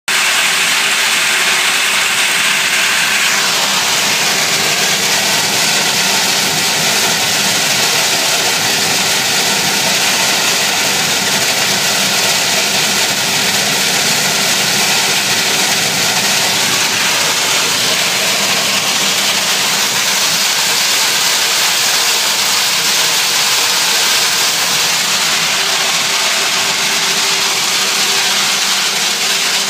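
Woodchip blower trailer running steadily and loudly while it feeds woodchip from its hopper and blows it out into a fuel store, a continuous machine noise with a few steady tones under it. A higher hiss drops away about three seconds in.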